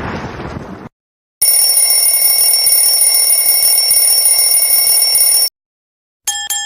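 A bell rings continuously for about four seconds, like an alarm clock's bell, then stops abruptly. Before it, the tail of an explosion fades out in the first second. Near the end a single bright ding starts.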